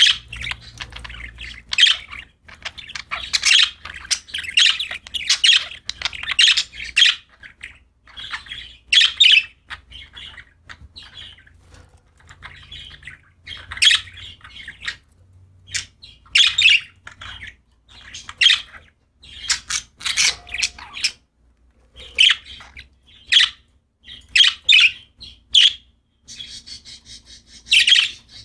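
Pet budgerigars chirping and squawking: short, high calls in quick irregular runs, broken by brief pauses of about a second.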